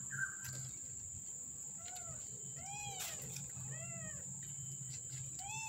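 A very young kitten mewing: short, high-pitched cries that rise and fall, several in a row, the clearest in the second half. A steady high insect drone runs underneath.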